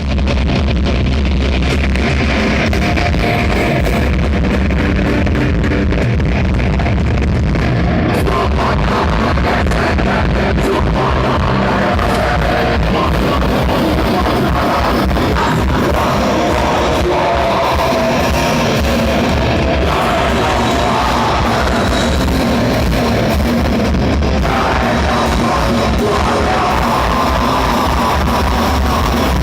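A rock band playing live, loud and continuous: distorted electric guitars, bass and drum kit, with a shouted or sung vocal, recorded from the audience so the sound is dense and overloaded.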